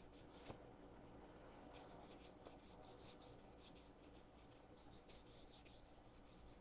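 Faint hand sanding with 400-grit sandpaper on a sanding block over a filler-primed 3D-printed part: quick back-and-forth rasping strokes, several a second, with a short break about half a second in.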